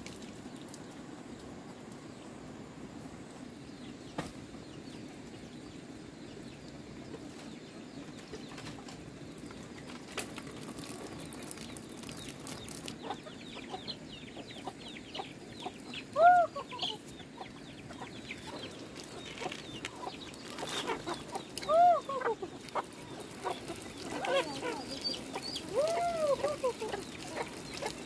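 Domestic chickens clucking and calling as they are fed grain. After a steady background stretch, a string of short, arched clucks begins about halfway through, with the loudest calls coming in a few separate bursts near the end.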